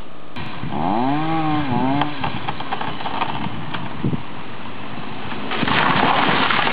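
Chainsaw running steadily, its pitch rising and falling about a second in, then getting louder near the end.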